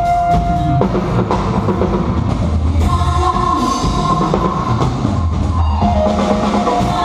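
Live band music: a drum kit playing under long held notes from a melodic instrument or voice.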